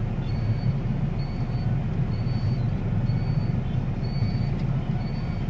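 Car engine idling in a stopped traffic jam, heard from inside the cabin as a steady low rumble. A faint short high beep repeats about once a second.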